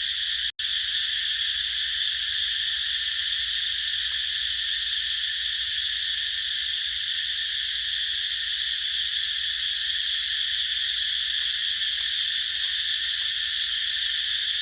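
Cicadas singing in a steady, unbroken high-pitched chorus, with an instant dropout to silence about half a second in.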